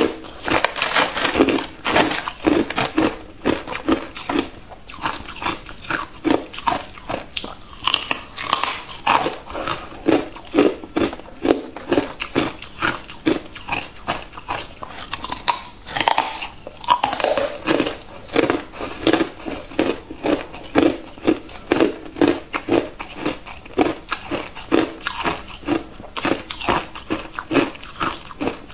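Thin, clear pieces of ice being bitten and crunched between the teeth: a steady run of sharp crunches, about two a second.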